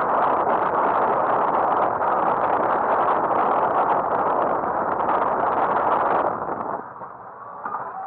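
Loud, steady rushing of water along the hull of a sailboat under way, heard from inside the cabin. The rush drops away suddenly about seven seconds in, and music starts near the end.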